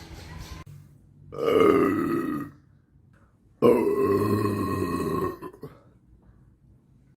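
A person belching twice, two long, loud belches: the first about a second in, the second starting abruptly about three and a half seconds in and lasting nearly two seconds.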